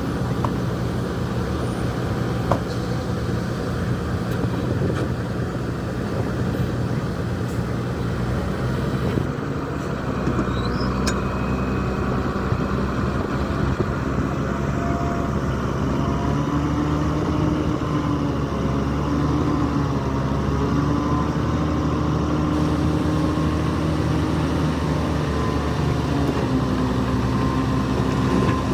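Bulldozer's diesel engine running steadily; in the second half its pitch rises and dips repeatedly.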